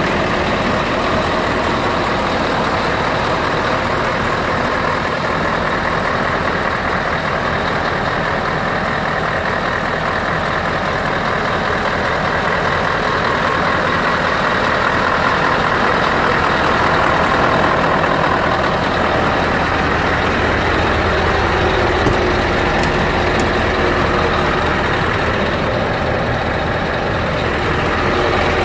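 Scania truck diesel engines idling steadily, an even low rumble that does not change in level or pitch.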